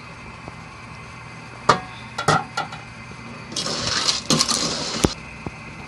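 Metal ladle stirring snails in their shells in an aluminium pot of coconut milk. First come a few sharp clinks, then about a second and a half of clattering and scraping of shells and ladle against the pot, ending on one sharp clink.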